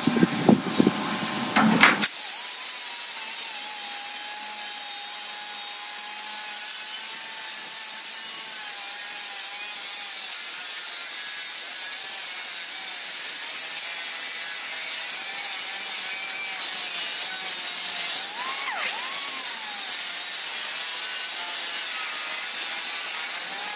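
A few loud knocks, then a small pneumatic right-angle grinder grinding welds flush on steel body panel: a steady whine over a hiss, wavering briefly late on.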